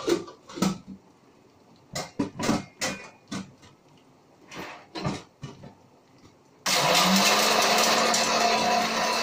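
A few separate knocks and clatters, then, about two-thirds of the way in, an electric mixer grinder switches on suddenly and runs with a steady loud whir and hum, grinding tomato chutney ingredients in its jar.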